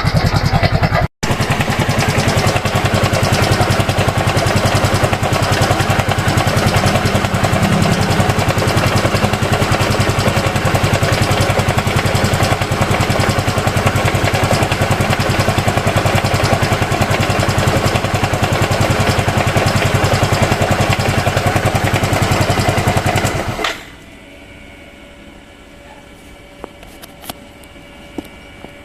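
Yamaha Mio M3 scooter's 125 cc single-cylinder engine running steadily with a rough, harsh mechanical noise, then switched off near the end. The mechanic traces the rough noise to a worn camshaft bearing, with the engine oil low.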